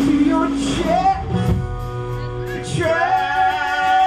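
Live band music: a voice singing over instrumental accompaniment, with two long held notes, one about a second in and one near the end.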